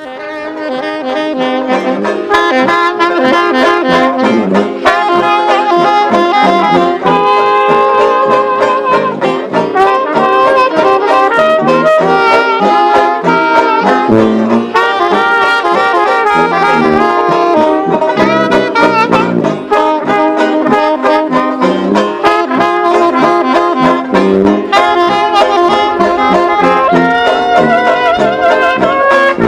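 Lively brass band music, rising quickly in loudness over the first two seconds and then playing on steadily.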